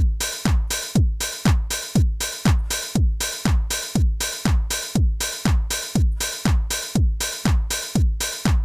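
Roland TR-909-style house drum-machine beat at about two beats a second. A four-on-the-floor kick with a falling pitch sits under hi-hats and a clap. The beat is run through a DBX 160-style compressor with a high-pass sidechain, so the kick is left mostly alone while the hats and clap are compressed, for added smack and groove.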